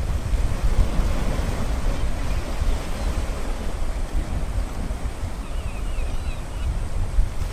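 Wind buffeting the microphone: a steady, gusting rush strongest in the low end. A few faint high chirps come through about six seconds in.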